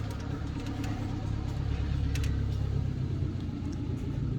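Low, steady rumble of a car engine running.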